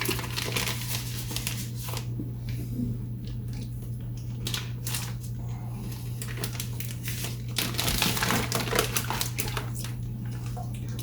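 Plastic turkey wrapping crinkling and rustling in irregular crackles as the raw bird is handled, over a steady low hum.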